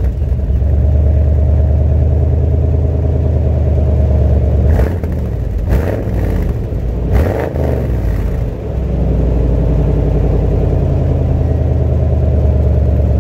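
Old OBS Chevy pickup's gasoline engine running at idle just after a mostly cold start, with a few brief sharp blips about five to seven seconds in. It is running rough with a miss that the owner cannot trace and that sets no check-engine light.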